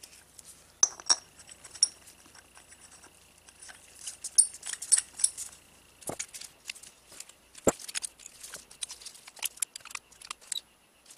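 Handling noise from a small Onan generator carburetor in gloved hands: light metallic clicks and clinks as it is turned over and its parts move, with a few sharper knocks on the wooden bench, and a busier patter of small ticks in the second half.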